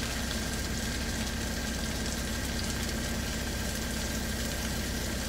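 Steady hum of an idling truck engine, with a pan of potatoes frying underneath it.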